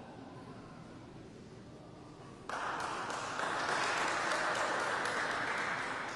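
Audience applauding, starting suddenly about two and a half seconds in after faint room murmur, and easing off near the end.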